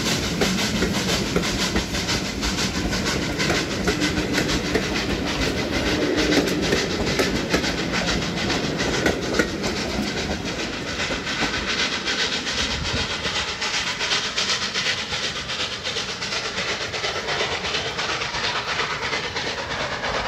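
Steam train hauled by a preserved LNER Pacific locomotive running past, its coach wheels clattering rapidly over the rail joints.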